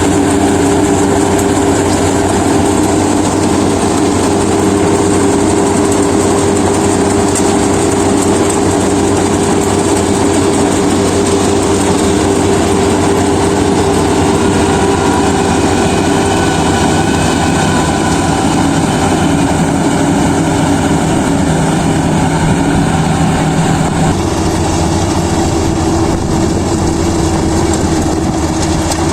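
Kubota DC-35 combine harvester running steadily under load. Its engine and threshing machinery make a loud, even drone, whose tone shifts slightly about 24 seconds in.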